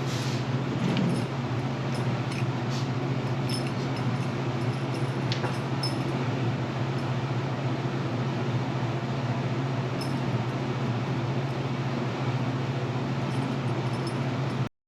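A steady low mechanical hum with a few faint clicks over it, cutting off abruptly near the end.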